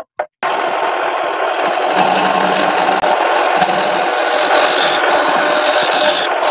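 A wood lathe spinning, with a homemade turning chisel, made from a scrap sickle blade, scraping and shaving the turning wood. The noise starts abruptly about half a second in and grows louder and harsher a second or so later as the cut bites, then runs steadily.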